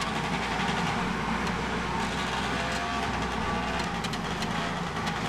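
Moped engine running steadily as the moped rides along a street.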